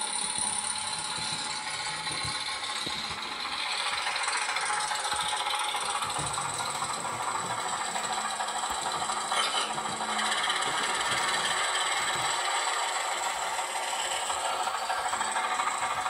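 Recorded engine sound of a Köf, the small German diesel shunting locomotive, played through a phone speaker for a model locomotive: a steady rattling diesel run, thin and with little bass.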